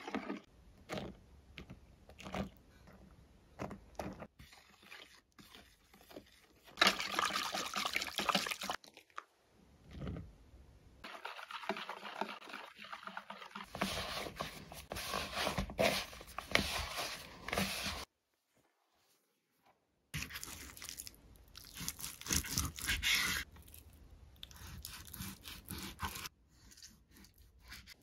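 Dough-making sounds in a plastic bowl: a fork stirring and tapping through a milk mixture, then hands kneading and squishing soft dough. They come in several short stretches, broken by a gap of silence of about two seconds a little past the middle.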